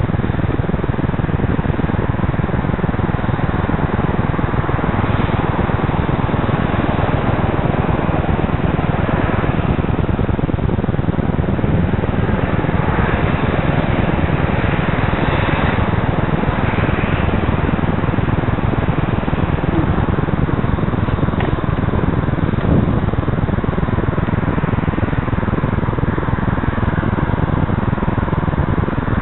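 Steady rushing of wind on a bike-mounted camera's microphone while cycling, mixed with the noise of road traffic passing at a junction.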